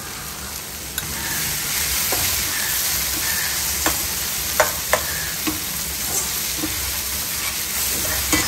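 Chopped onions and tomatoes frying in an iron kadai, sizzling steadily while being stirred with a perforated steel ladle that scrapes and clinks against the pan a few times. The sizzle gets louder about a second in.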